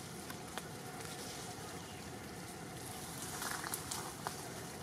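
Steady outdoor background noise with scattered light clicks and rustles of leaves and twigs as macaques climb through tree branches, with a brief louder rustle about three and a half seconds in.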